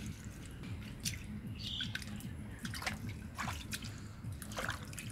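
Wet mud and shallow water squelching and dripping in irregular small splats as bare feet and hands move through the mud of a drained pond.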